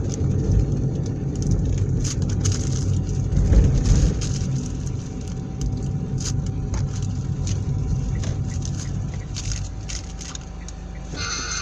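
A car in motion: a steady low engine and road rumble with scattered clicks and crackles. Music comes in just before the end.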